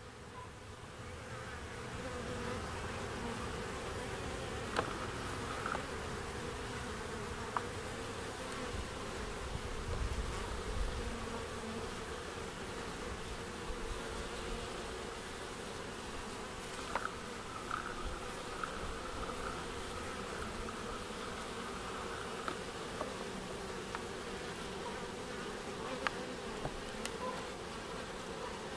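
Honeybees buzzing at a hive entrance: a steady hum from many bees flying in and landing, with a few brief sharp ticks scattered through it.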